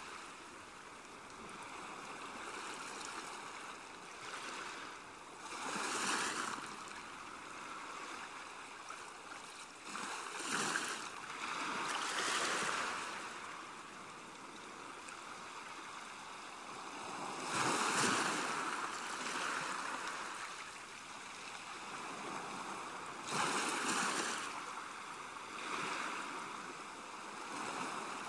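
Ocean surf: a steady wash of breaking waves that swells and fades in about five surges, a few seconds apart.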